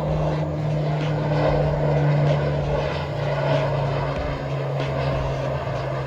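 Steady motor drone with a low hum, its pitch stepping down slightly about four seconds in.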